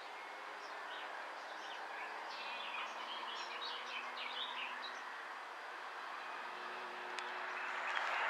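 Small birds chirping and twittering for a few seconds in the middle, over a steady outdoor rumble with a faint low drone of a distant train.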